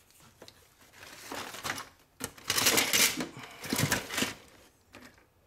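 Clattering and rattling handling noise as a soldering iron and the RC truck are picked up and moved about on a wooden workbench, with a run of irregular knocks and clicks, loudest in the second half.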